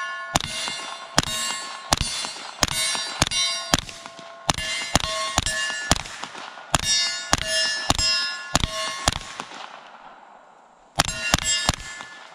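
Suppressed CZ Scorpion Micro 9mm, fitted with a SilencerCo Hybrid 46, firing subsonic rounds in quick strings, each shot followed by the ringing of a hit steel target. About twenty shots go off, then a pause of nearly two seconds, then a last quick string of three near the end.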